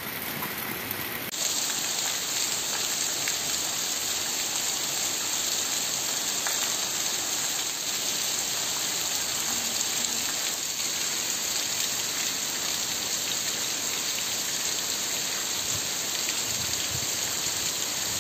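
Heavy rain pouring steadily onto a waterlogged cobblestone street.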